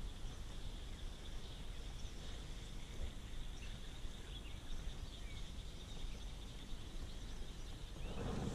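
Quiet lakeside ambience: a steady high insect drone with a few faint bird chirps over a low rumble. Near the end a louder rustling starts.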